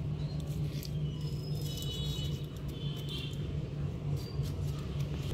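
Faint crackle and rustle of ajwain (carom) seeds being crushed between the fingers and sprinkled into gram flour, over a steady low hum. A few faint high chirps sound about two to three seconds in.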